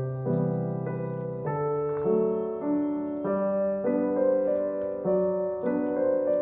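Soft background piano music: a slow melody over low bass notes, the chords changing about every half-second to second.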